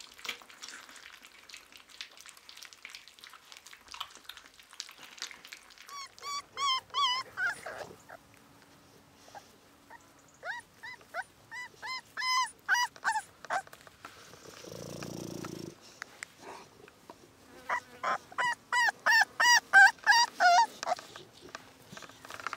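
Cane Corso puppies about a month old whimpering and yelping: three bouts of quick, high-pitched whines, the last one the loudest. Before them, a few seconds of wet smacking and lapping as the puppies eat minced meat from a bowl, and midway a short rush of noise.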